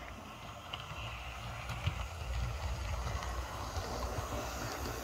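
Dapol Class 59 model diesel locomotive running along the track: a low motor hum and wheel rumble with scattered faint clicks, getting louder about two seconds in as it passes close.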